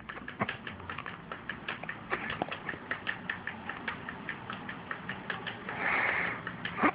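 A cat's paw and claws tapping and scratching at a laptop screen: a quick, irregular run of light clicks, several a second, with a longer scrape near the end.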